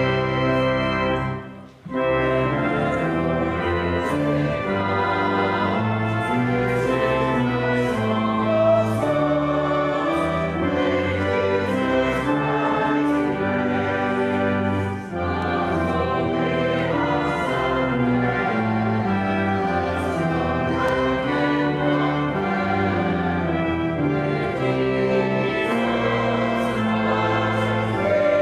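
A church organ playing a slow piece in full, sustained chords, with a brief break about two seconds in.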